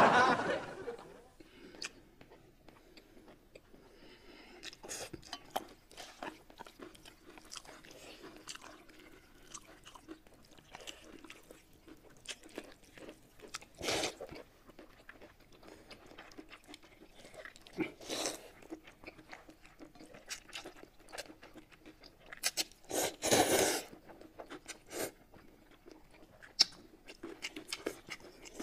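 Close-up eating sounds of two people: many small wet smacks and bites as braised chicken legs and noodles are chewed. There are a few louder bursts, one of them a noodle slurp about halfway through.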